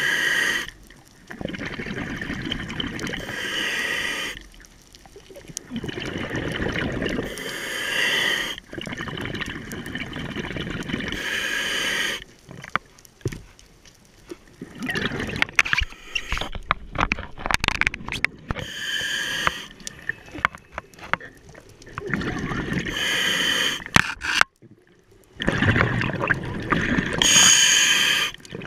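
Scuba diver breathing through a regulator underwater: hissing inhalations every few seconds, each followed by a rush of bubbling, crackling exhaust bubbles.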